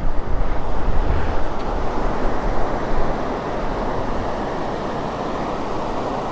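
Water pouring out of a dam's outlet tunnel and churning into the channel below, a steady rushing noise. Wind buffets the microphone during the first two seconds or so.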